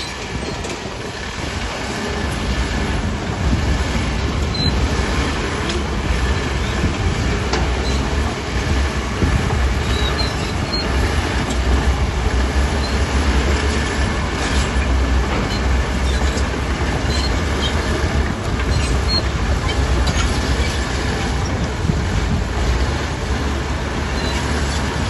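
Bulldozer's diesel engine running steadily with a low drone, with scattered clanking and rattling from its steel tracks working over stone.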